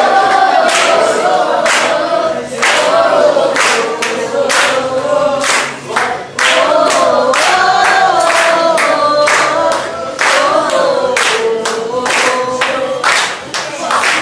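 A choir of voices singing a gospel song in unison, over a sharp, steady beat of about one stroke a second.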